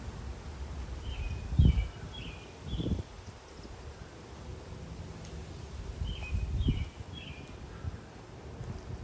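A small songbird sings a short phrase of quick, falling chirps, and sings it again about five seconds later, over outdoor background noise. Several loud, dull low thumps fall between the phrases; the loudest comes about a second and a half in.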